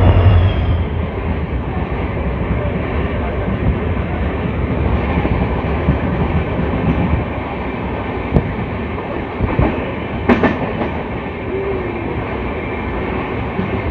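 Two trains passing each other at speed on adjacent tracks. A WDP-4 diesel locomotive's engine hum goes by at the very start, then the opposing express's coaches rush past in a steady din of air and wheels clattering over rail joints, with a sharp bang about ten seconds in.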